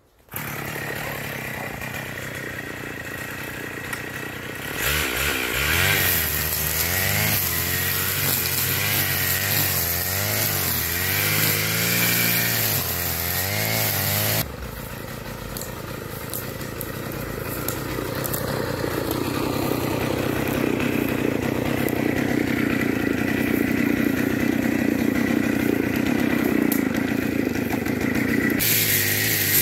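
Stihl FS 550 two-stroke brushcutter with a nylon-line trimmer head running at high revs while cutting grass and brush, its engine pitch wavering up and down under the changing load. The sound starts suddenly and jumps abruptly in character twice, about halfway through and near the end.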